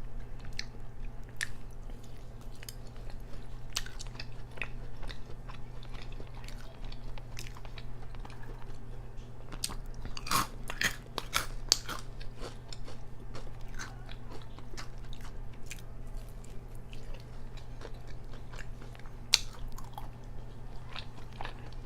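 Close-up chewing and biting of hot-Cheeto-crusted fried food, with irregular crisp crunches; the loudest crunches come about halfway through and again near the end.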